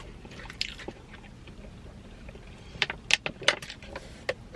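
Close-miked chewing of pepperoni pizza: scattered sharp mouth clicks and crunches, with a quick cluster of them about three seconds in.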